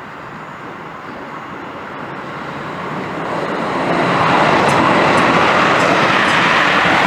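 Bentley Continental GT3-R's twin-turbo V8 with Akrapovic exhaust drawing nearer, growing louder over about two seconds and then holding loud and steady.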